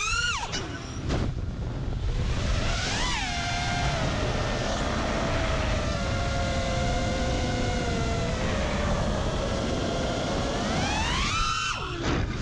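FPV quadcopter's T-Motor F60 Pro II 2700 kV brushless motors whining, the pitch jumping up and back down with throttle punches about three seconds in and again near the end, holding fairly steady in between, over a low rush of noise.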